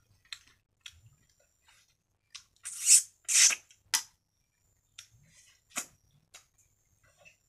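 Eating snail curry by hand: scattered wet lip smacks and clicks, with two loud sucking slurps about three seconds in and a shorter one just after.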